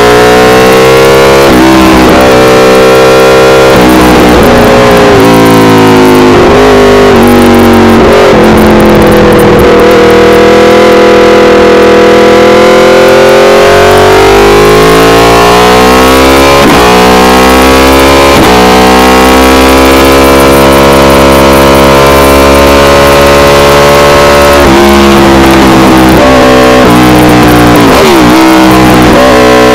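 Aprilia RSV4 Factory's V4 engine through an SC-Project CRT exhaust at full song, its pitch climbing and dropping repeatedly as the bike accelerates, shifts and brakes, with sudden breaks at the gear changes. It is loud enough that the recording is clipped and distorted throughout.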